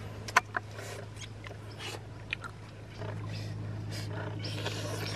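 Clicks and crackles of hands handling and biting into cooked food, with one loud click about half a second in, over a steady low hum that gets louder about three seconds in.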